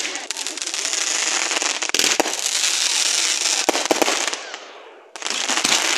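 Aerial fireworks bursting overhead: a dense rush of small pops with sharp bangs about two seconds in and again around four seconds. The noise dies away, then a fresh loud burst starts suddenly near the end.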